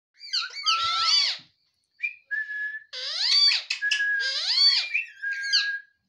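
Indian ringneck parakeet calling: a run of short whistly calls that glide up and down in pitch, with a brief pause about a second and a half in.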